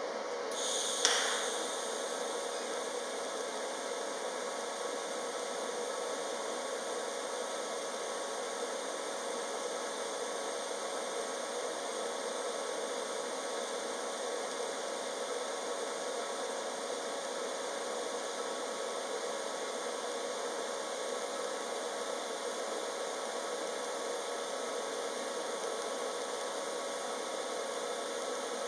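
DC TIG arc from a Jasic TIG 200P AC/DC PFC welding 1.5 mm stainless sheet at 48 amps. The arc strikes about a second in with a short louder burst, then burns with a steady hiss and buzz.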